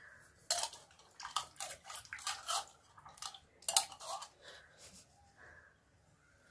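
Hands handling a steel bowl of damp rice-flour and sesame dough: an irregular run of short soft clicks and crackles for the first few seconds, then fainter.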